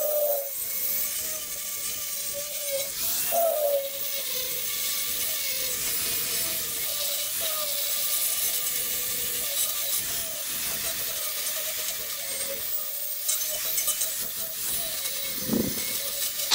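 DeWalt angle grinder grinding the edge of a steel plate, its motor whine wavering in pitch as the disc is pressed into the steel, over a steady high grinding hiss.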